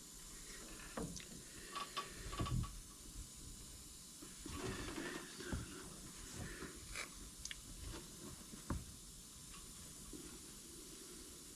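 Faint scattered clicks and taps with a soft scraping stretch midway, the sound of hand work on a plastic part with small tools.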